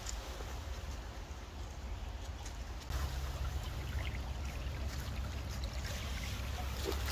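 Small forest creek trickling over rocks: a steady water noise, under a low rumble that gets louder about three seconds in.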